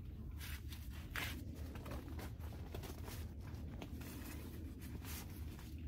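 Rustling and scratching of tent material being handled, short irregular scratchy sounds about twice a second, over a steady low hum.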